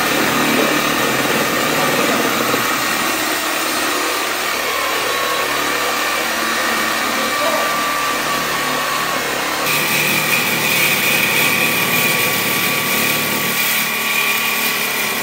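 Corded cutoff wheel grinding through the steel tube of a 1991 Kawasaki Ninja 500 motorcycle frame: a loud, steady grinding whine that changes about ten seconds in.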